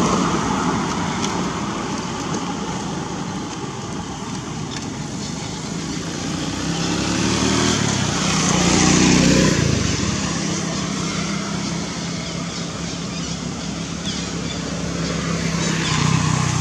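Motor vehicle passing on a road: its engine hum swells to its loudest about nine seconds in, then eases back to a steady low drone over a constant hiss of traffic noise.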